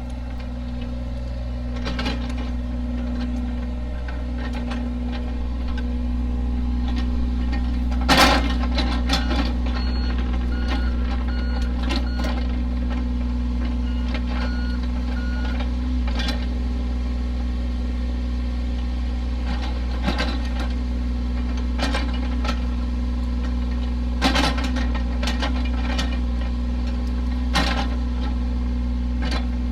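Heavy construction machine engine running steadily at a constant pitch. A backup alarm beeps on and off for several seconds, and there are a few sharp metal clanks, the loudest about eight seconds in.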